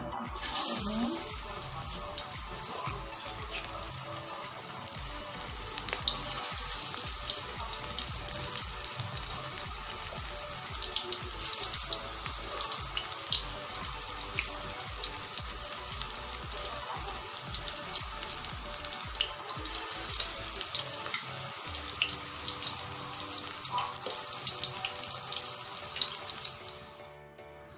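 Onion pakoras (gram-flour battered onion fritters) deep-frying in hot oil: a steady sizzle of dense, fine crackling that stops just before the end.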